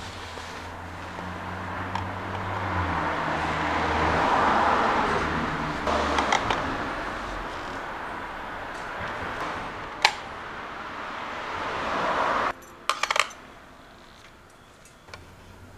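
Small bicycle parts set down on the steel platter of a digital scale, giving a few sharp metal clicks, including a quick cluster about three-quarters of the way through. Under them runs a swelling noise that cuts off suddenly just before the last clicks.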